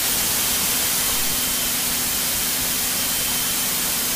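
Steady rushing cabin noise of a single-engine Cessna in flight, engine and airflow at reduced approach power of about 1400 RPM, with a faint steady hum underneath.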